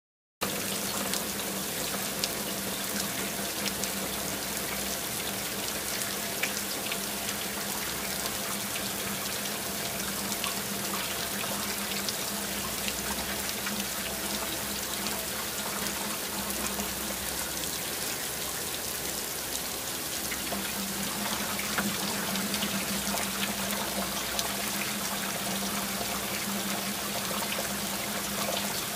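Pot of tomato-based chicken stew simmering: a steady bubbling hiss with many small pops, over a low steady hum.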